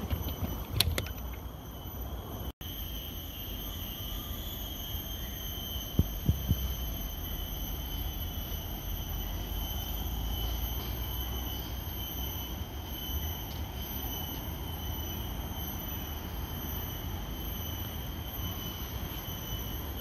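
Riding a bicycle: steady low wind rumble on the microphone and tyre noise, with a steady high-pitched whine throughout and a few sharp clicks about a second in and about six seconds in.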